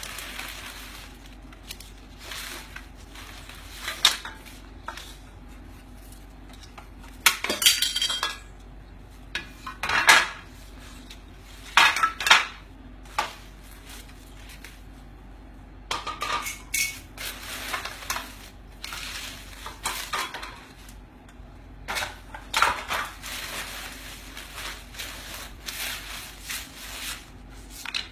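Paper banknotes rustling and slapping down in bundles, with pieces of a broken clay piggy bank clinking and scraping against each other, in irregular short bursts.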